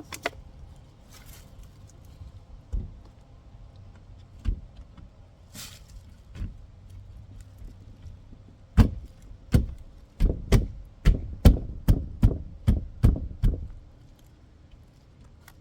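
A window frame being pressed and knocked into its silicone-bedded opening: a few light knocks, then past the middle a quick run of about a dozen loud knocks, two to three a second, as it is seated into the sealant.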